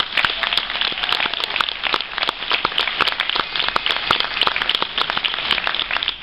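Audience applauding: many hands clapping densely, with some sharper claps close by.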